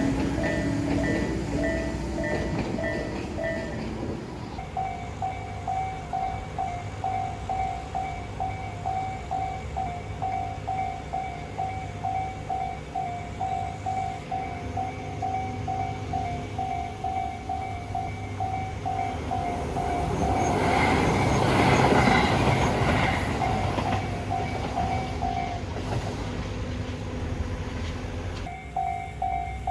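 Japanese railway crossing warning bell ringing with a rapid repeating ding, over train noise that fades in the first few seconds. About two-thirds of the way through, a Tobu 8000 series train passes with a brief swell of running noise; the bell stops a few seconds later and starts ringing again near the end.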